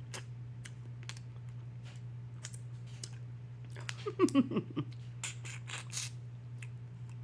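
Eating sounds of a seafood boil: scattered small clicks and cracks of crab and shrimp shells being handled and chewed, with a denser cluster of louder sounds about four to six seconds in, over a steady low hum.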